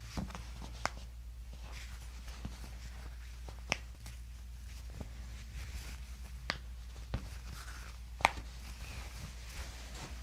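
Scattered sharp clicks and taps, about one a second at irregular spacing, the loudest a little past the 8-second mark, over a steady low hum.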